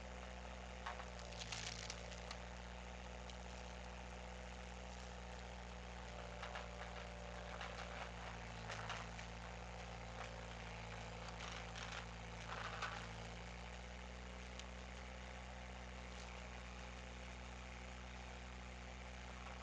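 Skid steer engine running steadily and driving the hydraulic wood splitter, with scattered cracks and clicks in clusters about a second in, midway through, and near thirteen seconds, when the engine note also briefly strengthens under load.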